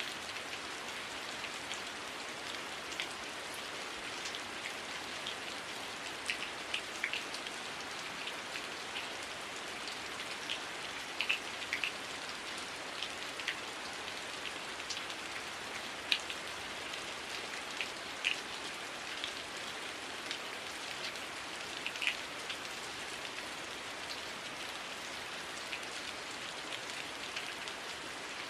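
Heavy rain falling steadily, a dense hiss with scattered close drop impacts standing out as sharp ticks at irregular moments.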